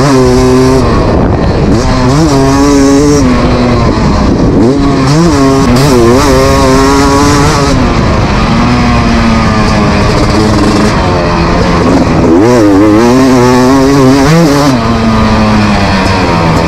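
Beta RX 300 two-stroke motocross bike ridden hard on a dirt track, its engine pitch repeatedly climbing and dropping as the throttle is opened and closed through the corners and straights.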